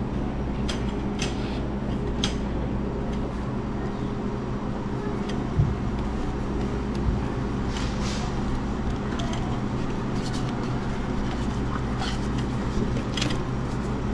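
A steady low mechanical hum, holding one pitch throughout, with scattered light clicks and ticks over it.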